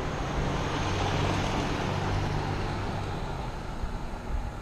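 A car drives past, its engine and tyre noise swelling about half a second in and fading after about three seconds, over a steady rush of road noise.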